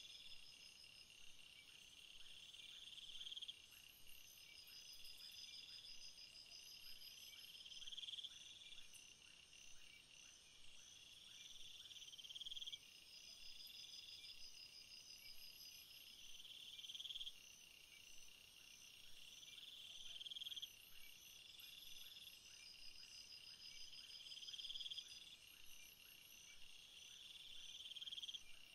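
Quiet night-time chorus of crickets and other insects: several trills overlap, the strongest swelling and then cutting off about every four seconds, with thinner pulsed trills higher up.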